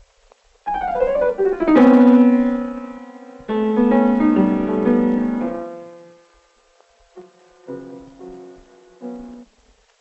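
Piano music: a quick descending run of notes about a second in, settling into a ringing chord that fades, then another chord about three and a half seconds in that dies away, and a few quieter notes near the end.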